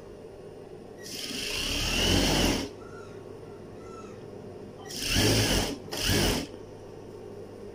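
Electric sewing machine stitching a seam in stretch fabric in three runs: a longer one about a second in that speeds up as it goes, then two short runs close together near the end, with a steady low motor hum between them.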